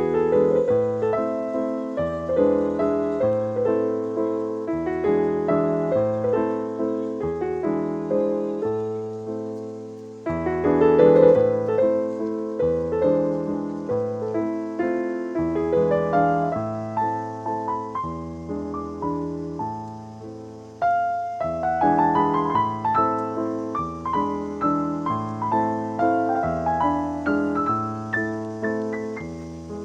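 Background piano music: a slow melody over repeated chords, each note struck and fading, with new phrases entering about ten and twenty-one seconds in.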